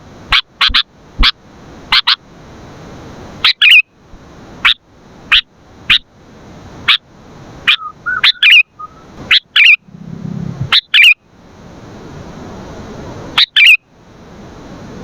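Sooty-headed bulbul calling: a run of short, sharp notes, about one every half second to second, some run together into brief chattering phrases.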